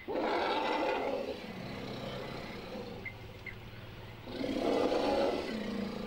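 Two harsh, growling roars from a large wild animal, each about a second long, the second about four seconds after the first.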